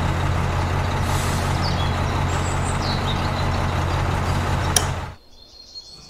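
Small electric motor of a miniature toy concrete mixer turning its drum of concrete mix, a steady hum with a rattling noise over it. It is switched off with a click a little before the end and winds down quickly.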